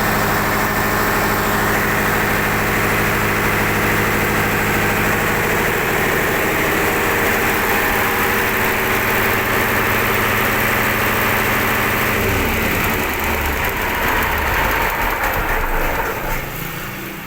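Mitsubishi 8DC11 V8 diesel engine running steadily. Its low note changes about twelve seconds in, and the sound drops in level near the end.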